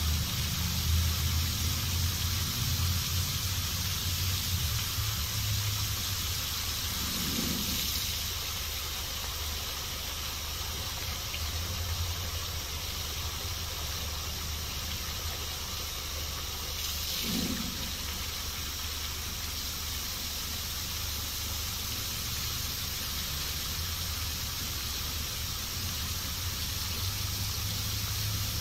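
A large outdoor fountain's tall central jet and arcing side jets, water rushing and splashing into the basin as a steady hiss, with a low rumble underneath that is strongest in the first few seconds.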